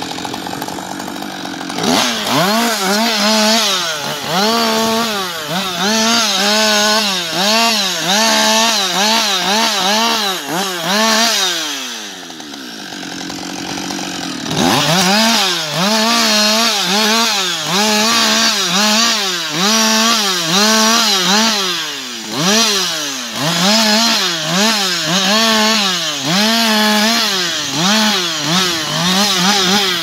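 Husqvarna 560 XP two-stroke chainsaw running at high revs while cutting through felled logs, its pitch dipping and rising one to two times a second as the chain loads up in the wood. It drops back to a low idle for a couple of seconds about midway and again at the very end.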